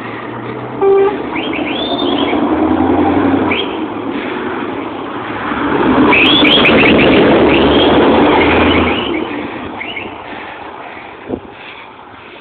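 Scania truck tractor unit driving past close by: its engine and tyres swell to a peak as it passes and then fade as it pulls away. A short, sharp tone sounds about a second in, and brief high rising-and-falling chirps come and go over the rumble.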